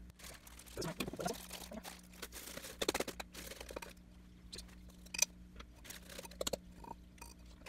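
Hands handling plastic bags and a glass beaker on a wooden table: scattered light taps, clicks and crinkles, with a faint steady hum underneath.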